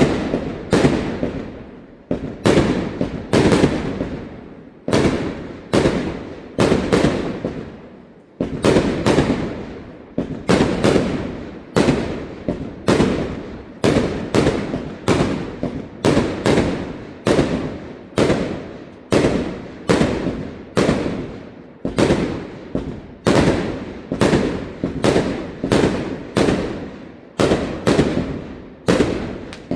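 Fireworks display: aerial shells bursting one after another in a steady barrage, about two bangs a second, each followed by a rolling echo that dies away.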